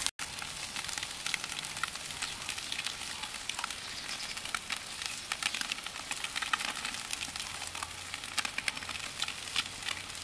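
Chicken thighs sizzling on a barbecue grill over direct heat, with a steady hiss and many small crackles and pops.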